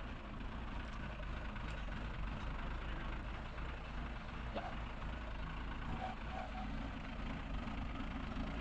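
An engine idling steadily, with a low hum under it.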